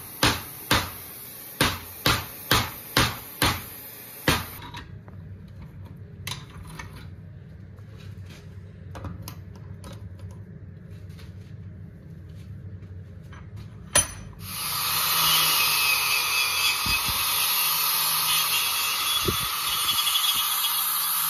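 Hammer blows on a hot stainless steel corkscrew clamped in a vise, about three a second for the first four seconds. After a quieter stretch and one sharp knock, an angle grinder with a wire cup brush starts up and runs steadily, brushing the forged steel.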